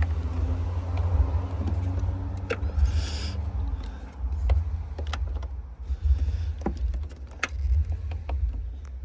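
Camera and mount being handled and repositioned: a steady low rumble of handling noise with scattered clicks and knocks, and a short rustle about three seconds in.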